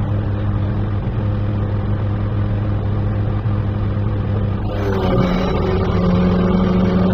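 Crane engine running steadily, heard from inside the operator's cab as the block is held and moved. About five seconds in the engine is worked harder, its note changing and getting a little louder.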